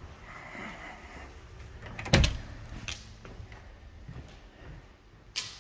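A house's front door being opened: a sharp clunk about two seconds in, followed by a few lighter clicks.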